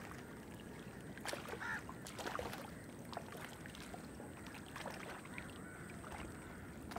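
Faint lakeside ambience: water lapping and small splashes, with a few short, sharp sounds scattered through.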